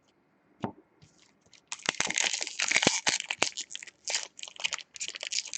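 A hockey card pack's wrapper being torn open and crinkled by hand: dense crackling and crinkling that starts about a second and a half in and comes in clumps.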